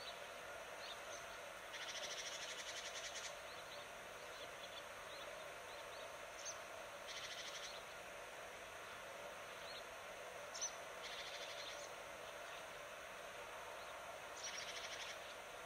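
Faint outdoor nature ambience: small birds chirping, with a rapid buzzing trill four times.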